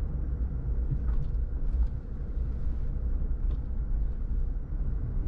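Car driving at low speed, heard from inside the cabin: a steady low rumble of engine and tyres on the road.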